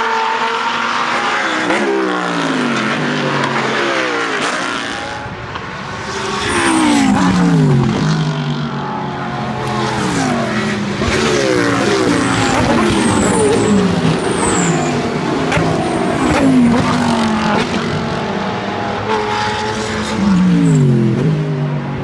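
A pack of GT3 race cars passing one after another at racing speed. Each engine note falls in pitch as the car goes by, in a long overlapping stream.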